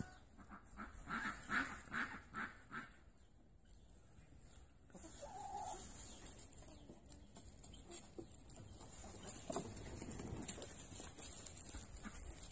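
A hen clucking: a quick run of short, repeated clucks in the first few seconds, then fainter, scattered calls.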